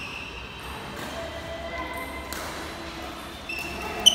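Badminton rally in a sports hall: a racket sharply strikes the shuttlecock just after four seconds, the loudest sound, with a brief ringing tone after it. Short high squeaks of shoes on the court floor come before it, over faint background voices.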